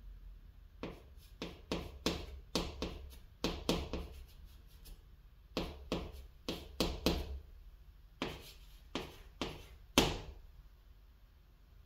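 Chalk writing on a chalkboard: a quick run of short scratching strokes and taps as characters are written, then a few more strokes, the sharpest and loudest about ten seconds in.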